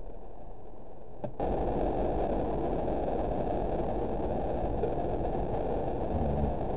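Thunderstorm noise on a camera microphone: a steady low rush that steps up abruptly about a second and a half in.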